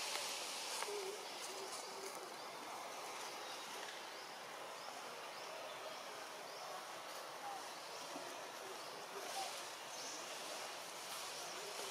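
Faint outdoor ambience: a steady hiss with a few soft, scattered bird calls.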